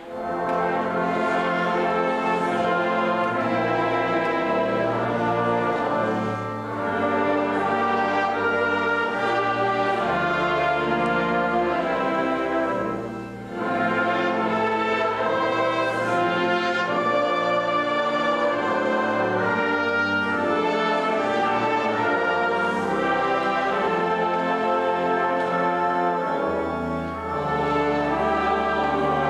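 Brass ensemble playing, with a tuba holding long low bass notes under trombones. There is a brief lull about 13 seconds in.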